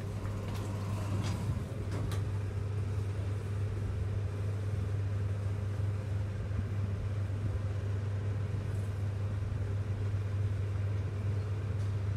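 Mitsubishi Elept traction elevator car travelling down, heard from inside the cab as a steady low hum with an even rushing noise. A few light clicks come in the first two seconds.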